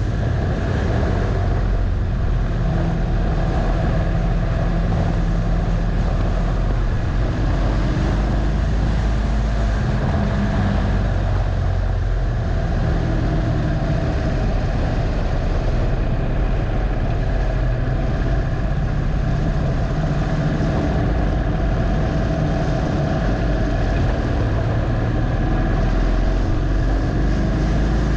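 Harley-Davidson Dyna Low Rider's V-twin engine running hard on track, with wind rushing over the bike. The engine note drops as the bike slows for a bend about halfway, then climbs again as it accelerates out.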